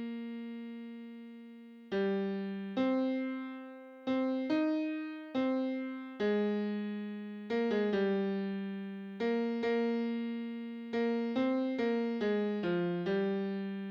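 Piano-toned keyboard playing a single choral tenor part, one note at a time, each note struck and left to fade. A long note rings out near the start, and a final held note fades away at the end.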